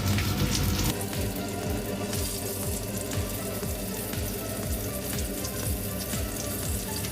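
Breaded chicken cutlets sizzling in shallow oil in a frying pan, a steady crackling hiss, with soft background music underneath.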